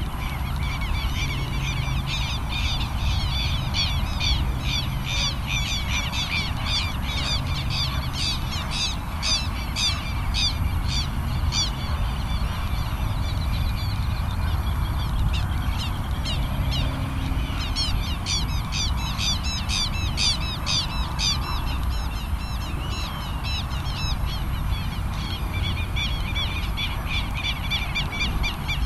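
Many birds chirping and calling in a dense run of short, quick chirps that thins out for a few seconds in the middle and then picks up again, over a steady low rumble.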